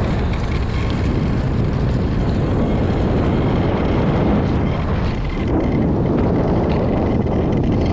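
Wind rumble on the microphone of a moving bicycle: a loud, steady noise heaviest in the low end.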